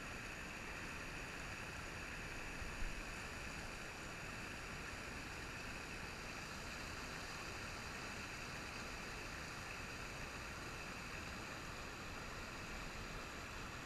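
River rapids rushing over bedrock, a steady even rush of water, with a brief knock about three seconds in.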